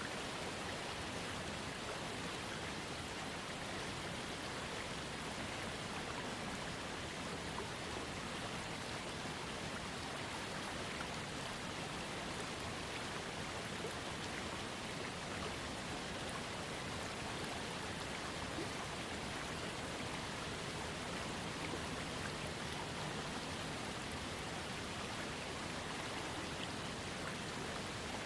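Small waterfall fed by a trickling creek: water falling and splashing in a steady, even rush.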